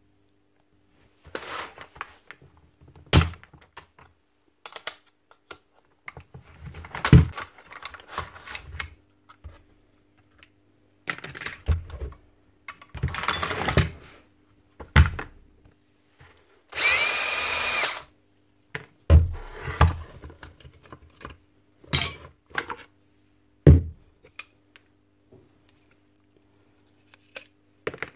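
Plastic and metal parts of a gas-powered fencing staple gun being taken apart by hand: scattered knocks, clicks and rattles of housing pieces and screws. A little past halfway a power drill-driver runs once for about a second.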